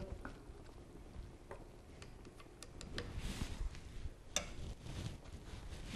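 Faint scattered clicks of chopsticks against a clay pot as mushrooms are stirred in soy sauce liquid, with a sharper click just after four seconds in. A brief soft hiss comes around three seconds in.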